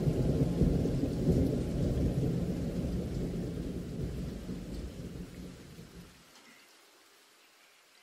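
A steady low rumbling noise with a faint hiss above it, fading out from about four seconds in and gone by about six seconds.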